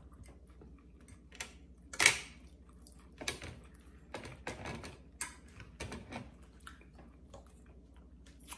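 Eating sounds close to the microphone: a run of irregular clicks, smacks and light clatter, the loudest about two seconds in.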